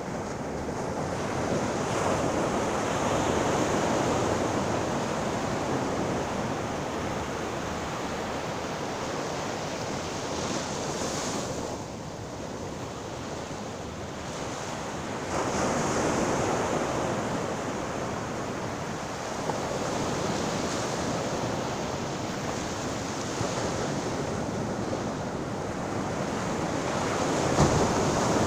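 Sea waves breaking and washing on the shore, a steady hiss that swells and ebbs in slow surges every several seconds, with wind on the microphone.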